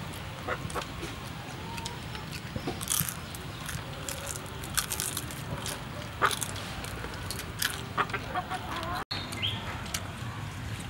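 Fried grasshoppers crackling and crunching as they are snapped apart by hand and chewed: many brief, irregular crisp clicks over a steady low background hum.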